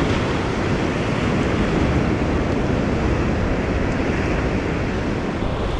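Ocean surf breaking and washing over rocks, a steady rushing noise, with wind rumbling on the microphone.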